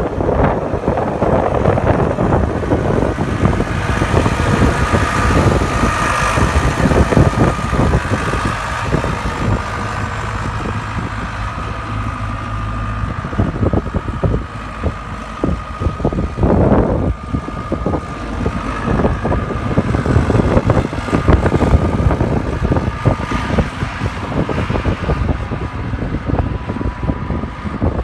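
John Deere 280 skid steer's 4.5-litre four-cylinder Powertech diesel running as the machine drives and turns, with a steady whine over the engine.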